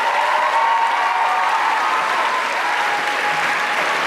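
Audience applauding loudly after the song ends, with high cheers and whoops riding over the clapping.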